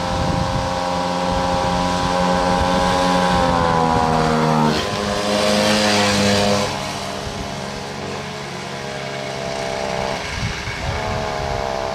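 Motorbike engine running on a makeshift exhaust. Its note holds steady, then eases down in pitch about four to five seconds in, with a rush of noise for a couple of seconds. It goes on lower and quieter, then rises briefly near the end.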